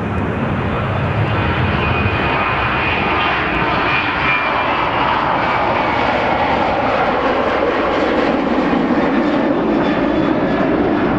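Boeing 737 airliner's twin jet engines at take-off power through the take-off roll, lift-off and climb-out: a loud, steady jet noise, with a faint high whine about a third of the way in.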